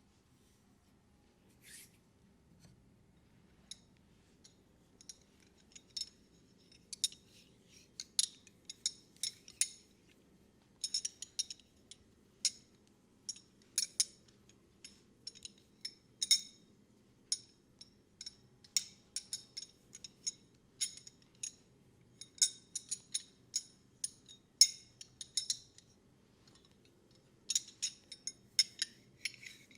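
Crisp, sharp clicks, singly or in quick clusters of two or three. They are sparse at first and come several a second from about six seconds in.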